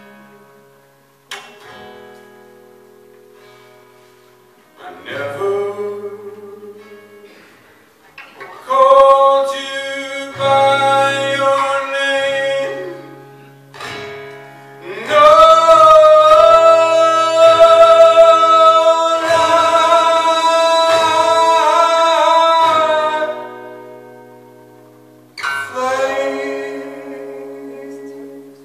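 Male voice singing to a plucked acoustic guitar. Quiet guitar notes come first, then the singing builds, with one long sung note held for about eight seconds in the middle before it falls away to guitar again.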